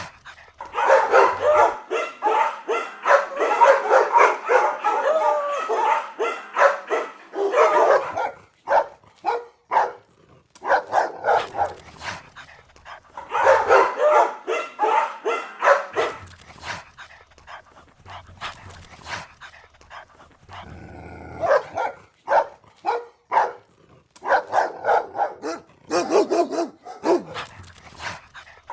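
Several dogs barking angrily in thick, overlapping volleys, with sparser single barks in between. A short cry that glides up and down comes about three-quarters of the way through.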